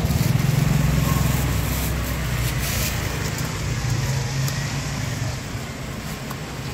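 A motor vehicle's engine running close by on the street, a steady low rumble that fades away about five seconds in. A few faint clicks sound over it.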